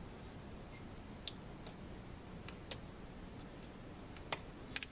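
Scattered small clicks and ticks of the old battery pack and its wires being handled and worked loose inside the flashlight's plastic housing, with a sharper cluster of two or three clicks near the end.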